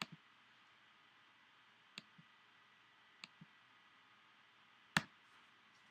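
Computer mouse clicks, four in all, each sharp click followed by a softer one a moment later, with the loudest about five seconds in, over a faint steady hiss.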